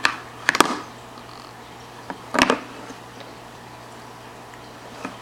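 A baby knocking and clattering a plastic bowl on a high-chair tray: a few short knocks, a cluster about half a second in and another about two and a half seconds in.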